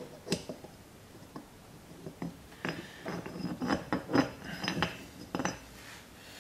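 Steel locker parts (gears and spacer) clinking and knocking against the cast-iron differential carrier as they are worked into place by hand: one sharp click about a third of a second in, then a run of small metallic clinks and knocks from about two and a half seconds in until near the end.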